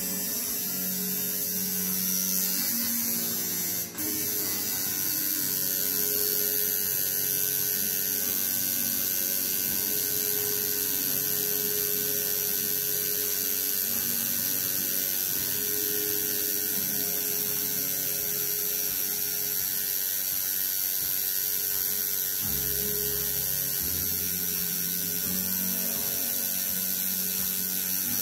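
Home-rebuilt coil tattoo machine with a single needle buzzing steadily as it lines lettering into skin, with a brief break about four seconds in.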